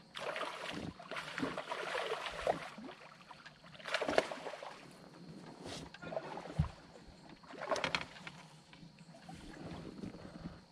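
Water splashing and sloshing at the side of a bass boat in several bursts, the loudest about four seconds in.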